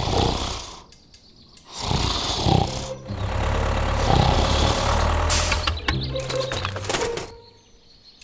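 Music mixed with a steady mechanical running drone. Both drop out abruptly about a second in, come back, break again near three seconds, and fall away near the end.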